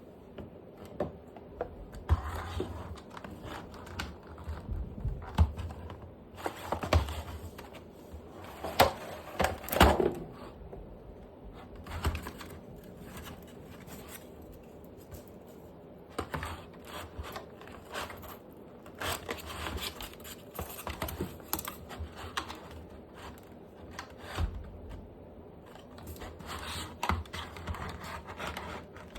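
Packaging being handled and opened by hand: irregular rustling, clicks and taps of cardboard and plastic, busiest in the first third and again in the second half.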